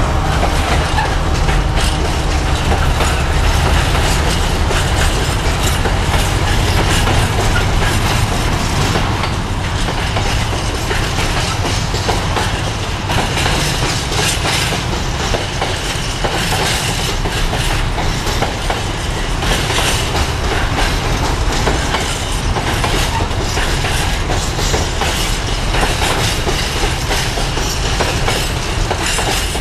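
Container wagons of a long freight train rolling past at speed, their wheels clattering steadily over the rail joints.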